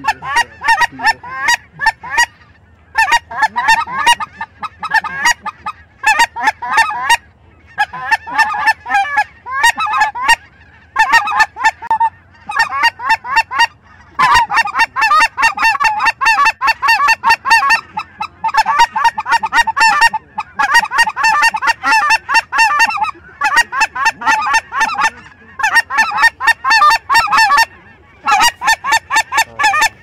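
Many geese honking, high-pitched and overlapping, in bursts a second or two long with short pauses between, nearly unbroken in the second half.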